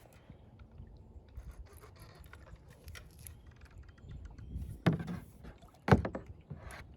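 Small clicks and scrapes of fishing tackle and handling aboard a small plastic fishing boat while a hooked carp is played to the boat. Two loud sharp thumps come about five and six seconds in.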